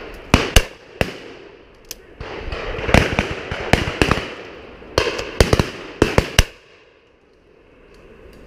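A volley of shotgun shots from the guns on a driven pheasant shoot: about a dozen sharp reports in quick succession, some loud and close, others fainter, each trailing an echo. The firing stops about six and a half seconds in.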